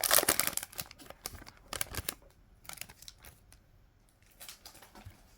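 Foil booster-pack wrapper crinkling as it is opened and handled, loudest in the first second, followed by a few light rustles and clicks of trading cards being handled.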